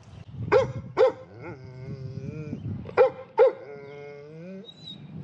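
A dog shut in a pen barks and cries at the gate, wanting out. Two short barks come first, then a long wavering cry, then two more barks and another long wavering cry.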